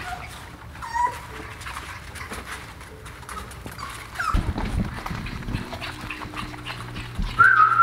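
English bulldog puppies giving a few short, high whimpers and squeaks, with soft knocks and clicks in the middle as they scramble across a hard floor. Near the end comes a loud, steady whistled note that opens with a short upward slide.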